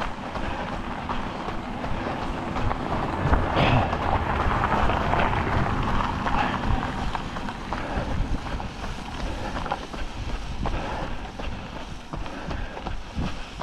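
Wind buffeting the microphone with an uneven low rumble, and a rushing noise that swells and fades over a few seconds in the middle.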